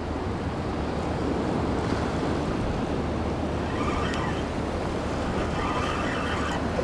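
Sea waves washing against jetty rocks, with wind buffeting the microphone. From about four seconds in come two short bursts of a high-pitched whirring sound.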